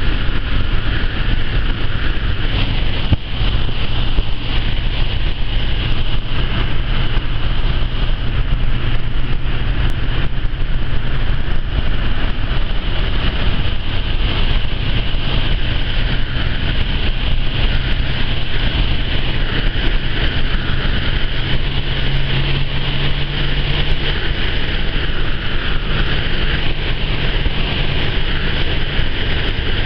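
Citroën Traction Avant driving along, heard from inside the cabin: its engine runs steadily under way with road and wind noise. The engine note rises a little about two-thirds of the way through.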